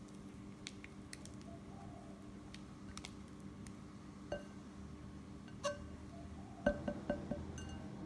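Silicone spatula scraping creamed butter around a glass mixing bowl, with light clinks against the glass that set the bowl ringing briefly. The clinks come a few at a time in the second half, the loudest in a quick cluster about two-thirds through.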